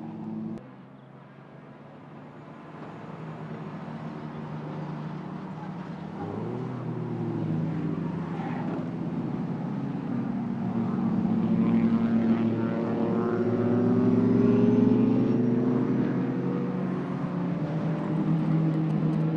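1950s sports racing car engines running hard, rising slowly in pitch and growing steadily louder. An earlier engine sound cuts off abruptly about half a second in.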